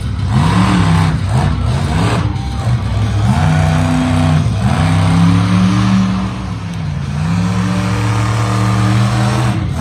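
Monster truck engine revving hard, its pitch rising and falling several times, then held high for stretches with a dip in between before dropping near the end.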